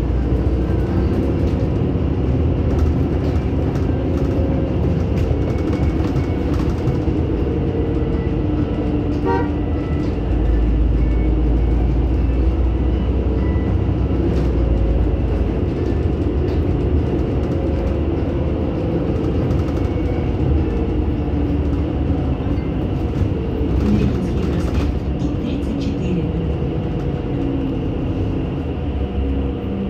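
NefAZ-5299-40-52 city bus heard from inside the cabin while under way: the engine's hum rises and falls in pitch as the bus speeds up and slows, over a steady deep road rumble. A brief short run of small tones sounds about nine seconds in.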